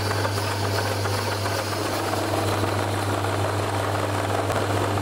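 Metal lathe running steadily with a low hum, as a parting tool cuts into a spinning wooden blank to part off a clamp pad.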